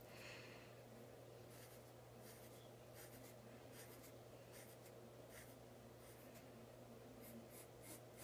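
Faint scratching of a graphite pencil on paper: short, quick strokes at irregular intervals as small lines are sketched, over a faint steady low hum.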